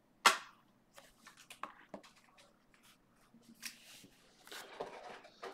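Trading cards being handled by hand: one sharp click shortly after the start, then faint scattered clicks and rustles of cards being slid and shuffled, with a longer rustle near the end.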